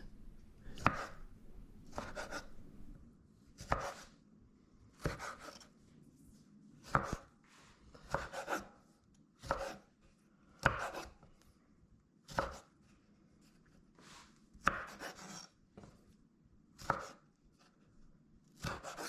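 Kitchen knife quartering small tomatoes on a cutting board: a slow series of separate cuts, each ending in a tap on the board, about one every second or so.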